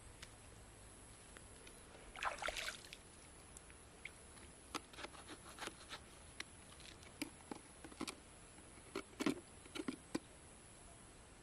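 A short splash of water about two seconds in, then faint, irregular clicks and scrapes of a knife working open a freshwater pearl mussel shell.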